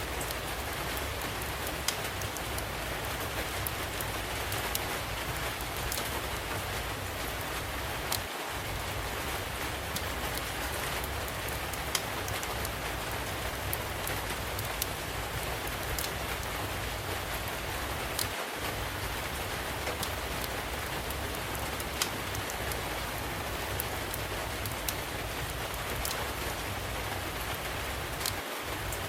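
Steady rainfall with the occasional sharp pop and crackle of a wood fire over it.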